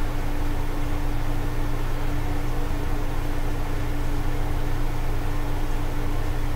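Steady background hum and hiss, unchanging throughout, with a constant low tone: the noise of a running fan, air conditioner or similar machine, or electrical noise in the recording.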